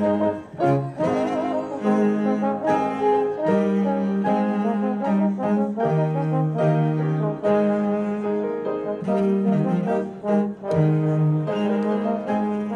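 Slow instrumental music of held chords, each lasting about half a second to a second.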